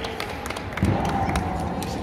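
A few scattered hand claps over background hall murmur, with a dull thump just under a second in.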